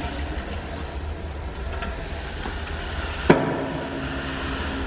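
Stunt scooter wheels rolling on smooth concrete, a steady low rumble with small clicks, and one sharp clack a little over three seconds in as the scooter knocks down against the floor, ringing briefly in the concrete car park.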